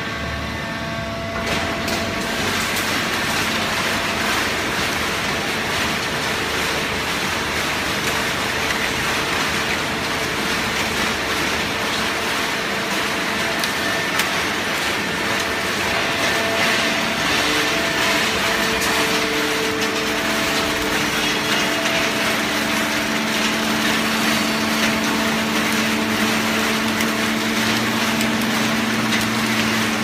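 Fully automatic horizontal hydraulic baler for waste paper and cartons running: a steady mechanical drone with hiss, with a low hum that grows stronger in the last third.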